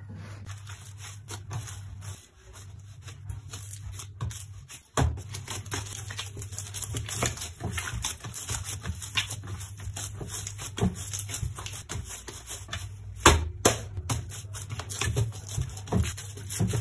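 Hands kneading batbout dough in a glazed clay bowl: irregular soft slaps, presses and knocks of fists on the dough and bowl, over a low steady hum. The sharpest knocks come about five seconds in and again about thirteen seconds in.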